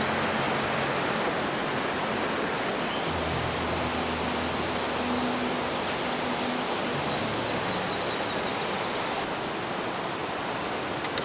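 Mountain stream in spate rushing steadily, a loud even hiss of fast water swollen by monsoon rain.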